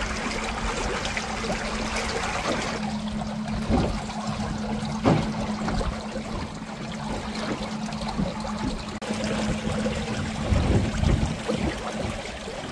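Water trickling and splashing along a small boat's hull as it moves slowly, with a few light knocks. A steady low hum comes in about two and a half seconds in.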